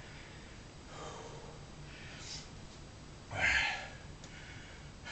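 A man breathing audibly after the exertion of bending a steel bar, with a few short breaths out; he speaks one word a little past the middle.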